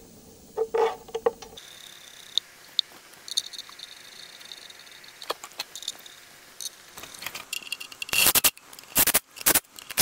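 Light metallic clicks and scrapes of parts and hardware being handled, then a cordless drill running in several short bursts near the end.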